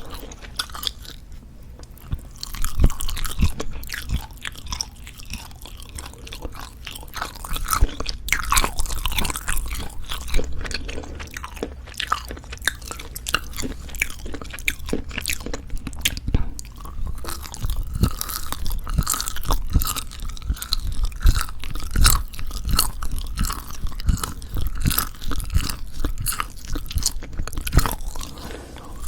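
Close-miked chewing of pork jerky: irregular wet clicks and crackles of the tough, dry meat being chewed, with occasional louder bites.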